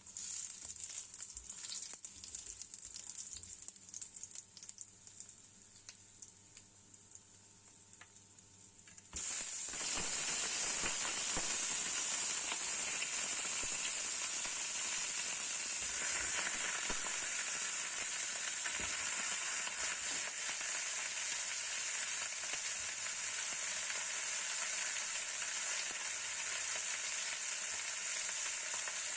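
Food frying in hot cooking oil in a pan, with a light sizzle and scattered pops. About nine seconds in, the sizzle jumps suddenly to a loud, steady frying hiss.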